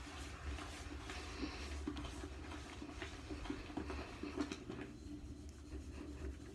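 Scrub sponge rubbing and swishing against the porcelain of a toilet bowl in soapy water, irregular scratchy strokes.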